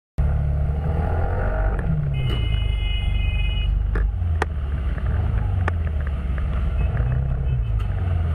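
Steady low rumble of vehicle engines and road noise in city traffic, with engine pitches drifting up and down. A steady high tone comes in about two seconds in and lasts about a second and a half, and a few sharp clicks follow around four to six seconds.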